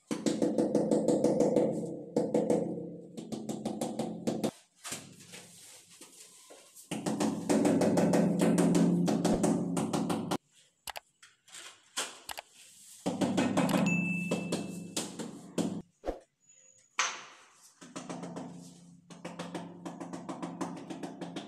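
Rubber mallet tapping ceramic tiles in quick runs of many knocks a second, four bursts of a few seconds each with short pauses between, bedding the tiles down into the mortar.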